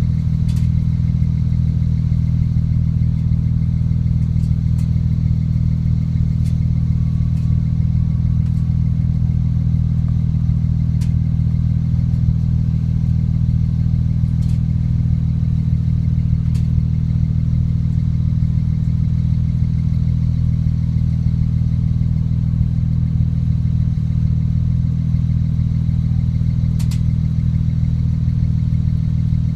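BMW N54 twin-turbo straight-six engine idling steadily, with a few faint clicks.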